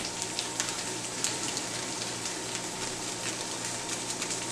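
Steak and onions frying in a pan: a steady sizzle with many small scattered crackles.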